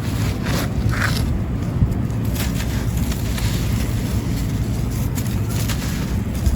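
Dry, grainy sand-cement crumbling and being crushed, with irregular crisp crunches scattered through, over a steady low rumble.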